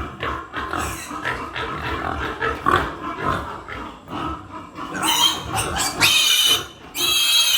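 Piglets grunting and squealing, with two long, loud, high-pitched squeals in the last few seconds.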